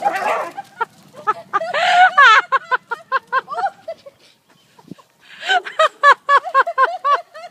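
Hysterical human laughter: long runs of high-pitched, rapid ha-ha bursts, breaking off for about a second in the middle before starting again.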